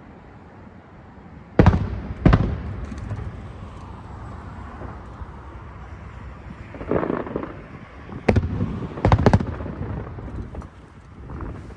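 Aerial firework shells bursting overhead: two sharp bangs a little over a second in, a duller burst about seven seconds in, then three more sharp bangs close together near the ninth second, with rumbling echoes between.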